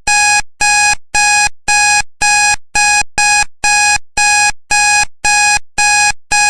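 Digital countdown timer's alarm beeping in a steady pattern, about two electronic beeps a second, each a short steady tone: the signal that the countdown has reached zero.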